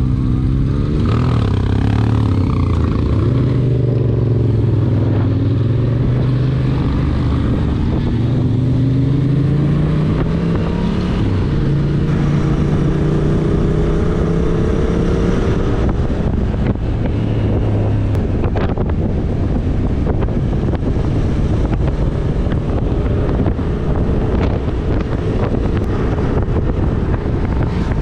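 Motorcycle engine running under way, its pitch dipping and then climbing slowly as the throttle and gears change, for roughly the first sixteen seconds. After that, wind rushing over the microphone covers it.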